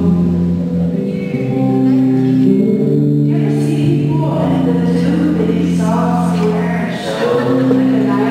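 Live music: a woman singing in phrases over sustained, held chords, with the echo of a large hall.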